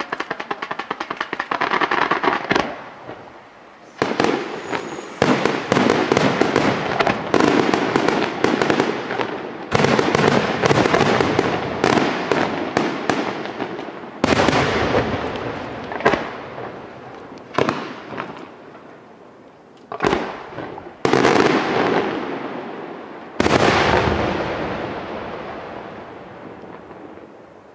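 Aerial fireworks display: a rapid run of sharp crackling reports, then a string of loud shell bursts in quick succession, each trailing off in a rolling echo and crackle. The last burst comes about three-quarters of the way in and dies away slowly.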